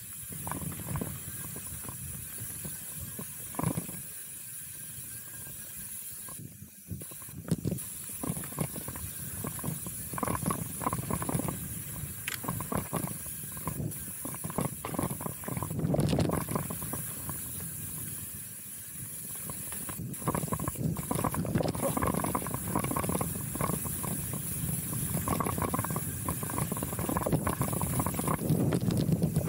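Chromag Rootdown steel hardtail mountain bike rolling fast down a dirt singletrack: tyres rushing over dirt and roots, and the bike rattling and knocking over the bumps, louder toward the end.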